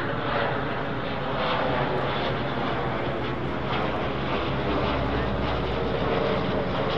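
Dash 8 twin-turboprop aircraft flying overhead: a steady drone of its propellers and turboprop engines with a low hum underneath.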